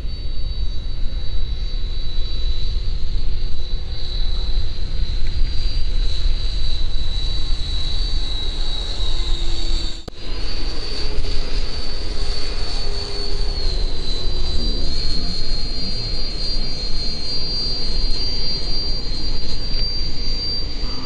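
50 mm electric ducted fan of a radio-controlled model jet in flight: a steady high-pitched whine that shifts a little in pitch, over a low wind rumble on the microphone. The sound breaks off briefly about halfway through.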